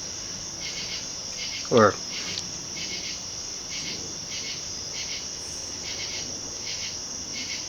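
Insects trilling: a steady high-pitched drone with a regular pulse a little under twice a second.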